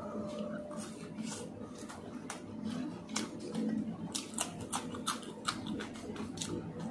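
A man chewing a fried aloo samosa close to the microphone, with irregular crisp crunches and clicks that come more often in the second half. He also bites into a raw green chili.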